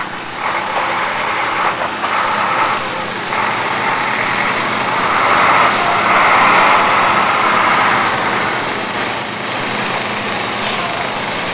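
A heavy vehicle's engine running close by, growing louder about halfway through and easing off again.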